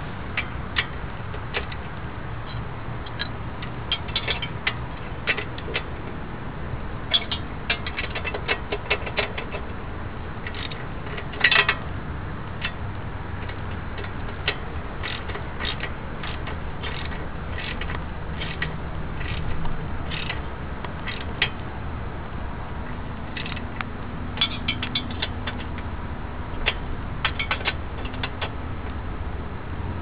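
Ratchet socket wrench clicking in short quick runs as the motorcycle's rear axle nut is tightened, with a louder metallic clatter of tools about a third of the way in.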